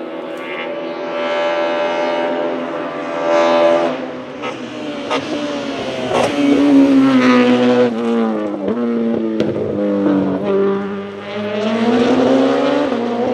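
BMW S42B20 2.0-litre four-cylinder race engine with individual throttle bodies, revving hard as the E36 STW car climbs. The pitch rises through the gears, drops away as the car slows for a bend, with a few sharp cracks, then rises again as it accelerates out near the end.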